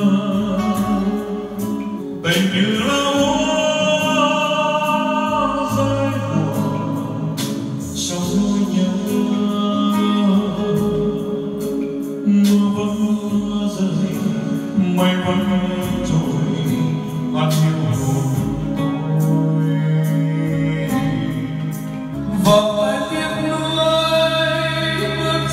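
Live singing of a slow Vietnamese love song with long held notes over instrumental accompaniment, sung into microphones and heard through the room's PA speakers.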